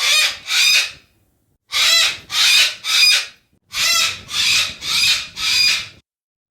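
Yellow-crested cockatoo screeching: harsh, raspy calls about half a second each, in three bursts of two, three and four calls with roughly a second's pause between bursts.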